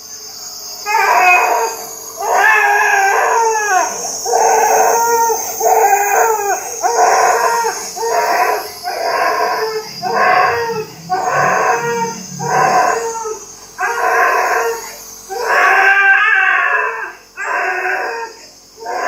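Young child crying in repeated wails, each about a second long, over the steady hiss of a nebulizer running during treatment for a cough.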